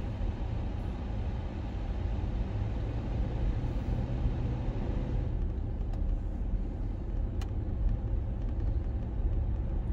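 Steady low rumble, with two faint short ticks in the second half.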